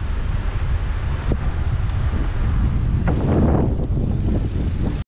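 Wind buffeting the microphone of a camera riding on a moving bicycle: a steady low rumble, swelling briefly about three seconds in.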